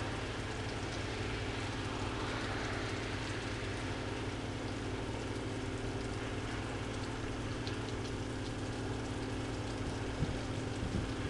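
Pressure washer running steadily: a constant drone of several steady tones under an even hiss.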